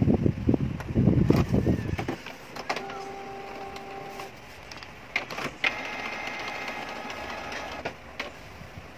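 Canon G-series inkjet printer running a test print: steady motor whines start about three seconds in, two sharp clicks come near the middle, and a higher whirring follows.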